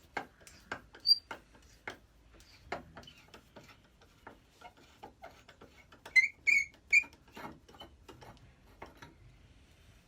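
Irregular clicks and taps of metal parts of a Record No. 71 router plane being handled while its knobs are taken off, with three short high squeaks in quick succession about six seconds in.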